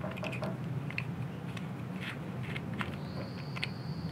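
Faint scattered clicks of a small screwdriver turning tiny screws out of the back of a mini FPV camera's plastic case, over a steady low hum. A thin steady high tone comes in about three seconds in.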